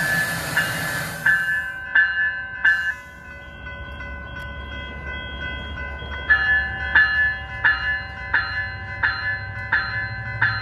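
Railroad grade-crossing warning bell ringing in a steady rhythm, about one and a half strikes a second, under the rumble of a train. A loud rushing hiss stops about a second in, and a low drone grows louder in the second half.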